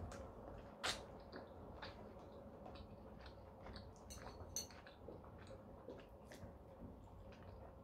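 Metal fork clinking and scraping on a plate, with sharp clinks about a second in and about four and a half seconds in, and quiet chewing of a mouthful of boiled homemade pasta.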